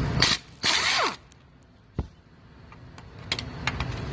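Cordless drill with a socket spinning out bumper bolts: two short trigger pulls in the first second, the motor whine falling as it spins down, then a single knock about two seconds in.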